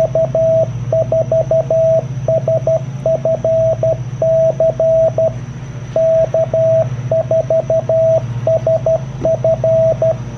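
Icom IC-703 transceiver's CW sidetone beeping out Morse code from its memory keyer, sending the call sign K4SFC. A single steady tone is keyed in quick dits and dahs, with short gaps between characters, over a low steady hum.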